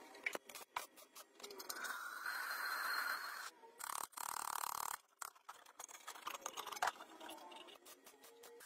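Sharp metal clinks and knocks as a steel bar and wrench are worked against a sheet-steel cover, with a few seconds of hissing crackle in the middle and crackling pops from a stick-welding arc near the end.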